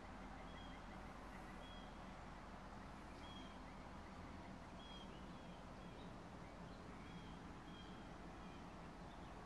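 A bird chirping faintly, short high notes repeated about once a second, over a faint steady low background hum.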